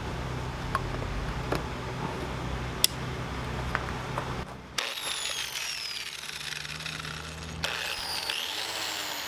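A low steady hum with a few sharp clicks as a plug goes into the outlet. Then a Ryobi 4-1/2-inch angle grinder with a wire cup brush, powered from the battery through a 500-watt inverter, runs with a high whine that falls in pitch as it winds down. It spins up again about eight seconds in, a sign the inverter is delivering power.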